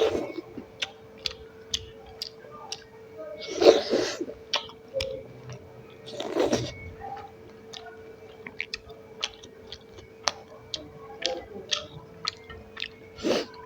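Close-miked chewing and wet mouth clicks of a person eating rice and curry, with louder bites a few seconds apart. A faint steady hum runs beneath.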